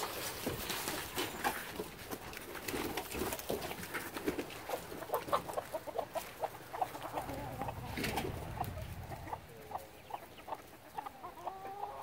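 Domestic chickens clucking in quick, short calls as they hurry out of their coop, eager to get out after being kept in all morning; near the end a couple of longer, drawn-out calls.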